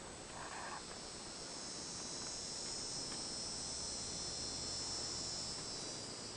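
Steady high-pitched chorus of chirring insects, swelling slightly midway, with a faint low hum underneath.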